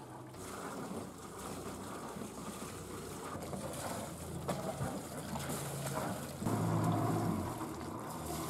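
A boat's engine running low under wind and water noise, growing louder for about a second some six and a half seconds in.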